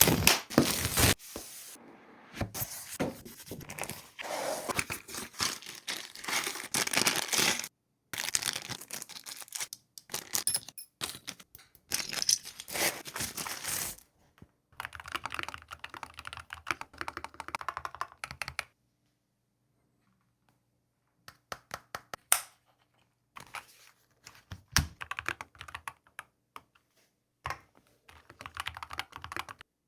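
Typing on a Keychron mechanical keyboard: fast runs of clacking keystrokes broken by short pauses. After a quiet stretch past the middle, the key presses turn sparse and scattered.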